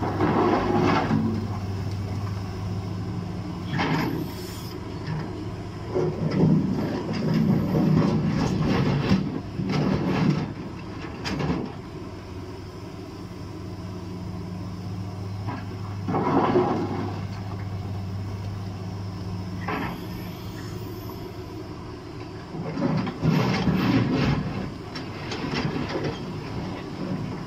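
Liebherr 944 crawler excavator's diesel engine running with a steady hum while its bucket dumps and scrapes stones, giving repeated bursts of rock clatter that are louder than the engine. The engine hum weakens about twenty seconds in.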